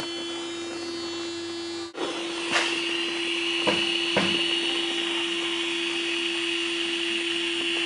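A small electric motor runs with a steady hum that cuts out briefly just before two seconds in; from about two and a half seconds a steady hissing whir joins it, with a few light clicks.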